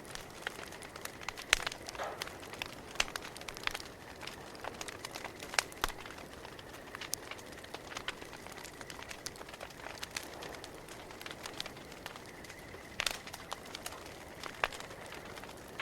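Campfire crackling: irregular sharp pops and snaps over a soft steady hiss, with a few louder pops, the loudest about a second and a half in.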